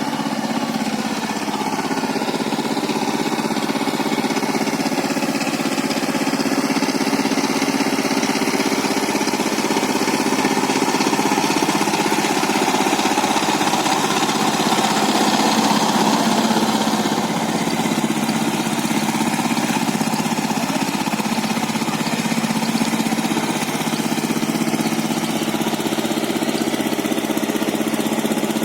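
Power tiller's diesel engine running steadily with a constant hum, a little louder around the middle.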